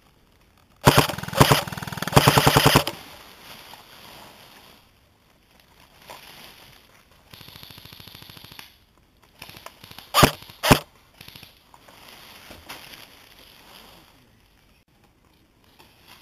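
Airsoft gun firing short bursts on full auto, about three in quick succession near the start. A fainter run of rapid fire follows midway, and two sharp knocks about ten seconds in.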